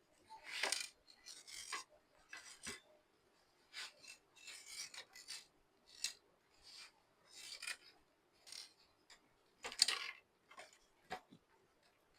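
Irregular short scrapes and rubs of hands and tools working on a coffee grinder's parts while it is taken apart, the loudest scrape about ten seconds in.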